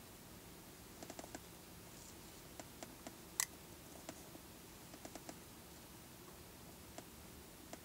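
Faint, irregular small clicks over quiet room tone, some in quick clusters of three or four, with one sharper click about three and a half seconds in.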